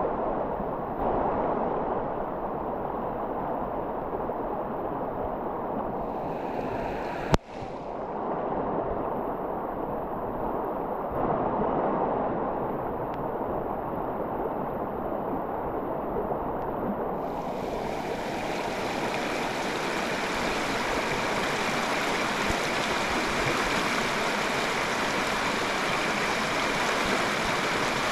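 Shallow river rushing steadily over rocks and riffles. One sharp click comes about seven seconds in, and the water sounds brighter and hissier from a little past halfway.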